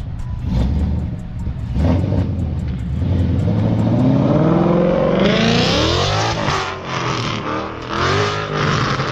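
Car engine revved hard through a freshly welded-in exhaust with new aftermarket mufflers: two short blips, then a long climb to high RPM, then several quick revs up and down near the end.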